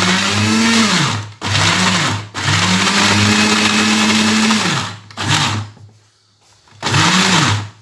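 Electric food grinder pulsed in several bursts, its motor whine rising and falling with each run. It is grinding steamed dried figs with garlic and olive oil into a thick paste. The longest burst lasts about two seconds, and there is a short pause before the last one.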